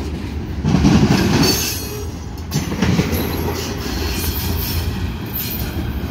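Loaded covered hopper cars of a freight train rolling past, their steel wheels rumbling and clattering over the rail joints, with louder surges about one and three seconds in as wheel sets go by and a faint high wheel squeal. The last car passes and the train draws away.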